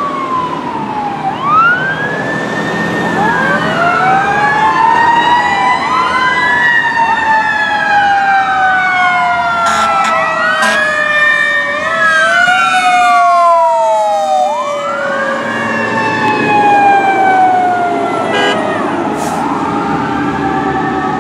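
Fire engine and rescue truck sirens passing: several electronic wails sweeping up and down and overlapping one another, with long slowly falling tones under them. A few short sharp blasts cut in around the middle and again near the end.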